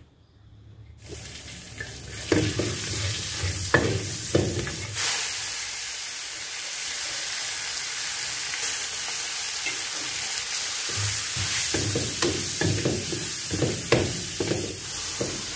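Pork belly stir-frying in hot oil in a pan. The sizzle starts suddenly about a second in, grows louder, then holds steady, while a spatula scrapes and knocks against the pan as the food is stirred.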